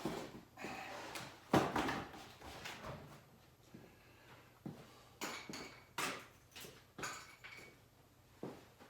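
Scattered clanks and knocks of steel being handled and set in place, the loudest about a second and a half in with a short ring, then four or five sharper knocks after it.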